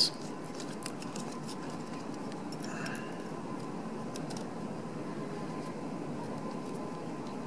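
Steady background hum of the room, with a few faint light clicks and taps of plastic and paper as a label and clear plastic cover are fitted over a desk phone's column of line keys.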